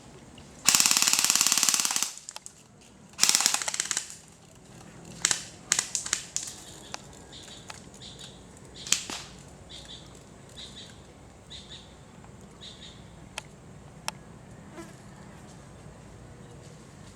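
Airsoft guns firing: a rapid full-auto burst of about a second and a half, a shorter burst a few seconds later, then scattered single shots.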